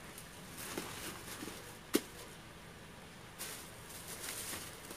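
Plastic grocery bags rustling in short bursts as they are lifted from a shopping cart into a car trunk, with one sharp knock about two seconds in.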